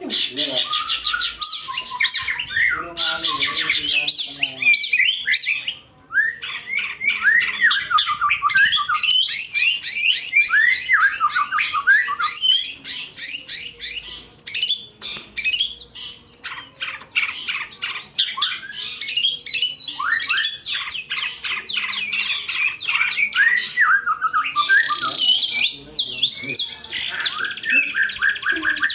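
Long-tailed shrike and white-rumped shama singing against each other: fast runs of repeated chattering notes, whistled sweeps and harsh squawky calls, almost without a break apart from a short pause about six seconds in.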